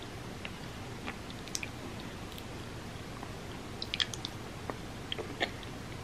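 Close-up chewing of a mouthful of red bean porridge: scattered small wet mouth clicks, busiest about four seconds in, over a steady background hiss.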